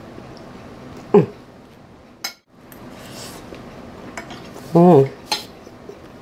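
Metal fork clinking on a plate a couple of times, with two short hummed "mmm" sounds from the taster, the louder one about five seconds in.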